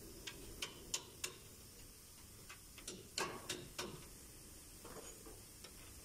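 Sharp metallic clicks and taps of a hand tool working the hub nut on a pickup's front wheel hub while the rotor is refitted, in irregular groups: four spaced clicks, then a quicker cluster about three seconds in, and a few more near the end.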